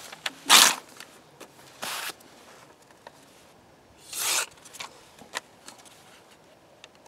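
A sheet of paper torn out of a notebook with a short sharp rip about half a second in, then a mini parang's blade slicing through the paper about four seconds in, a paper-cutting check of the edge's sharpness.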